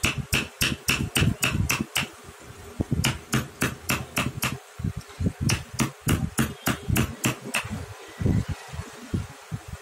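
Carving chisel being struck with a mallet to cut into wood. The taps are quick and even, about five a second, in three runs with short pauses between them.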